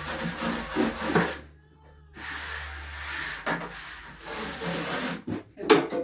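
Water spraying from a hose sprayer into a plastic 5-gallon bucket to rinse it clean, in two long runs with a brief stop about a second and a half in. A few knocks near the end.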